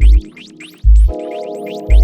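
Minimal / deep tech electronic music: a deep kick drum hitting about once a second under a sustained synth chord that shifts to higher notes about a second in, with quick short rising chirps repeating up high.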